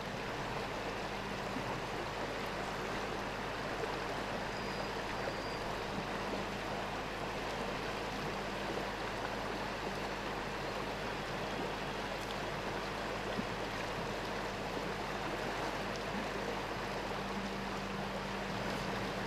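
Steady rush of flowing stream water around a wading angler.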